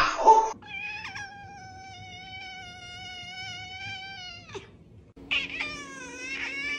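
A brief rustling noise at the very start, then a cat holding one long, steady meow for about four seconds, its pitch dipping at the end. After a short gap a cat gives a quick run of short meows that bend up and down, over a low steady hum.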